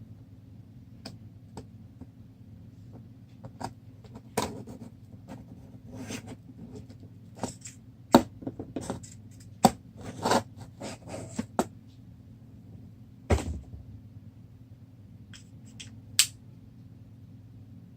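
Double-edged OTF knife being handled: a string of separate sharp clicks and snaps as the blade is fired out and pulled back, with some scraping, over a low steady hum.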